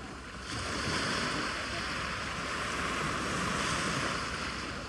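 Sea waves breaking and washing in: a surge of surf hiss rises about half a second in and eases off near the end.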